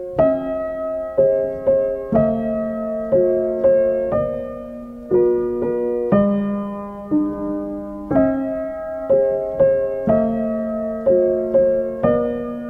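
Background piano music: slow, single notes and chords struck about once or twice a second, each left to fade.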